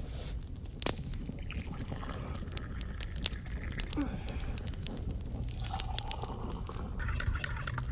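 Hot water poured from an aluminium cooking pot into metal camping mugs near the end, with scattered clinks of pot and mugs, over a steady low wind rumble on the microphone.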